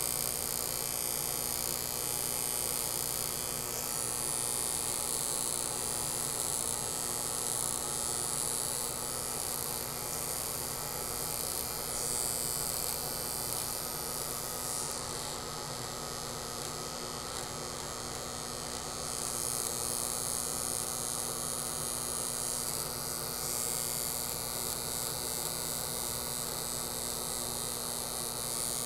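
Electric hair clippers running steadily with a constant buzzing hum while a mustache is clipped off.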